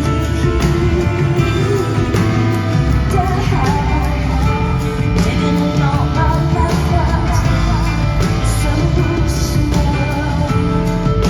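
Live rock band music at full volume, drums and bass under a woman singing.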